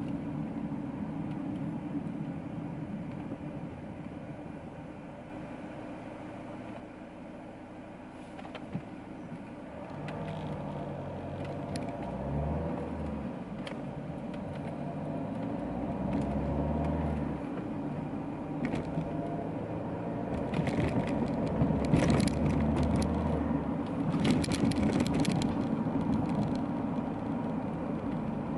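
Opel Insignia 2.0 CDTI four-cylinder turbodiesel and road noise heard from inside the cabin while driving. From about a third of the way in, the engine note climbs and drops in steps as the car accelerates through the gears. Near the end there is a run of clicks and knocks.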